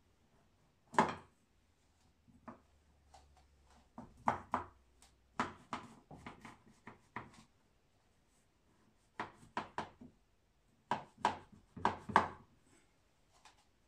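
Large kitchen knife cutting through set besan barfi in a glass baking dish, the blade tapping and knocking on the dish in bunches of short sharp strokes, the loudest about a second in.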